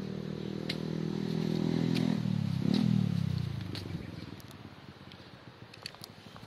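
A passing motor vehicle's engine: it grows louder over the first three seconds, then its pitch drops as it goes by and it fades out about four seconds in.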